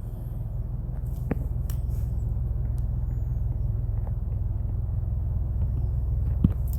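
Steady low hum that grows slightly louder, with a few faint clicks.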